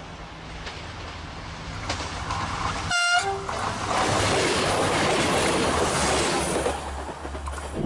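An SNCF X 72500 diesel railcar approaches with a low engine hum that grows louder. About three seconds in it gives a short horn blast, then passes close by with a loud rush of engine and wheel noise that fades slightly near the end.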